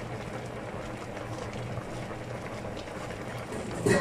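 Fish in sauce bubbling at a simmer in an uncovered enamelled cast-iron casserole, a steady bubbling hiss over a low hum. A short, sharp knock sounds near the end.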